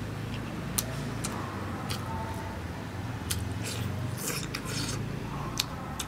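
Eating sounds: chewing and mouth noises as someone eats rice with chili, with a few light clicks of wooden chopsticks against a wooden rice bowl, over a steady low hum.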